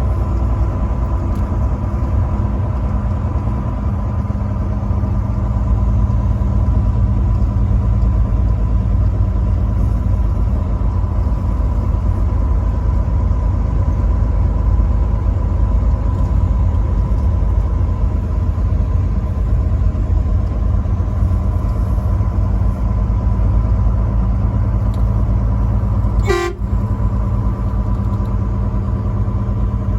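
Truck on the road at a steady speed: engine drone and road rumble, with a thin steady high tone over it and a brief knock about 26 seconds in.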